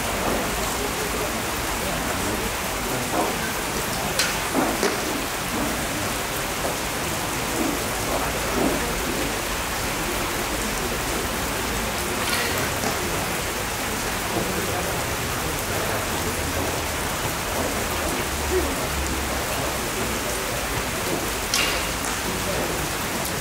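Steady rain falling, an even hiss. A few sharp snaps from the archers' shots come through about four, twelve and twenty-one seconds in.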